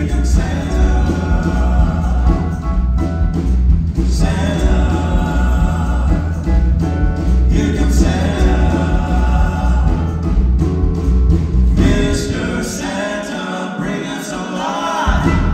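Live gospel music: a vocal group singing in harmony over a band with a strong pulsing bass beat. About three-quarters of the way through, the bass and beat drop out and the voices carry on over a thinner accompaniment toward the end of the song.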